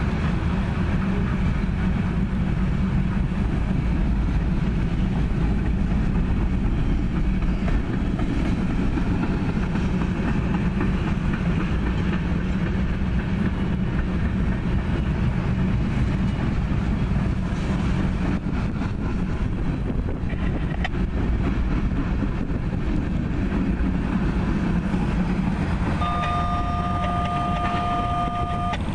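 Freight cars of a mixed freight train rolling past: a steady rumble of wheels on rail. Near the end a steady two-note tone sounds for about three seconds.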